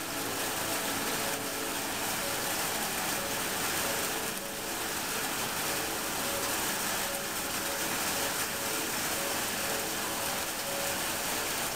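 Steady rain falling, an even hiss of rain on the ground and surfaces.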